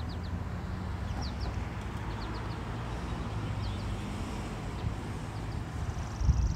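Birds chirping in short, scattered high calls over a steady low background rumble, with a brief low thump near the end.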